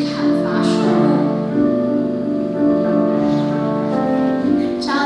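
Recorder ensemble playing an arrangement of classical music, several parts holding steady notes and moving in steps.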